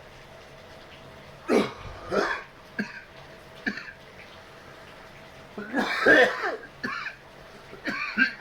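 A man coughing again and again after a hit of cannabis oil: single coughs spaced out at first, then a longer coughing fit about six seconds in.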